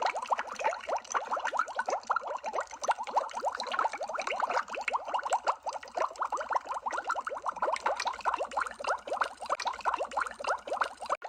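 Underwater bubbling sound effect: a continuous stream of many small bubbles rising and popping in quick succession, each a short gurgling blip. A split-second dropout near the end, where the looped recording restarts.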